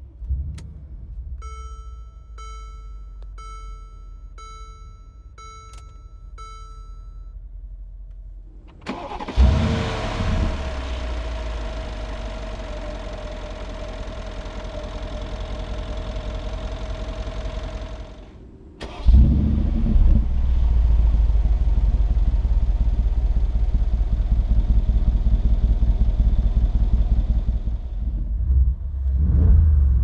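2014 Mercedes-AMG G63's 5.5-litre twin-turbo V8 starting and idling. It is heard first from the cabin, with a dashboard warning chime repeating about eight times, then from under the open hood with a steady whine over the idle. Later it idles louder and deeper, with a brief rev near the end.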